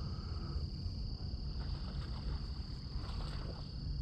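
Insects, likely crickets, chirring in a steady, unbroken high buzz, over a low rumble of wind on the microphone.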